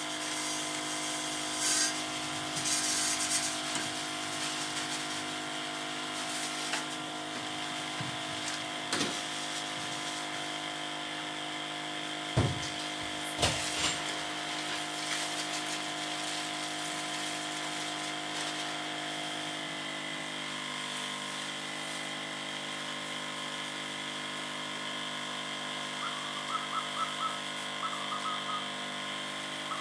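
Small battery-powered electric sprayer pump (a rice-field sprayer pump) running steadily with a whining motor note, its pitch shifting slightly about twenty seconds in. A few sharp knocks over the first half.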